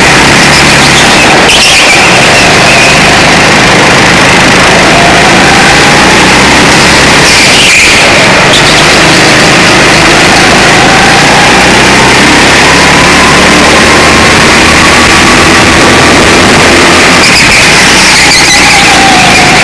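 Go-kart engine at full throttle, close up and very loud. Its pitch climbs slowly along the straights and drops sharply about a second and a half in, about eight seconds in and near the end, as the driver lifts off for corners.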